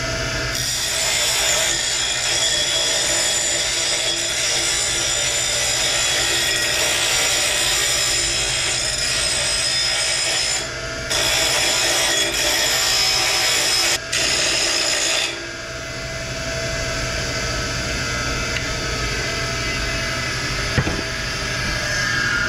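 Bench grinder grinding the edge of a steel disc, a homemade hubcap: a steady, harsh hiss with two short breaks as the piece comes off the wheel. About fifteen seconds in the grinding stops and the grinder's hum carries on, with a single click near the end.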